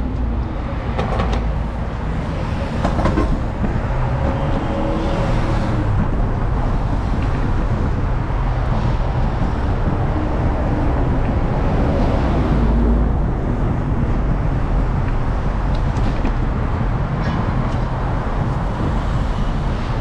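City street traffic: cars and a city bus running along the road, a steady low rumble that swells briefly about two-thirds of the way through.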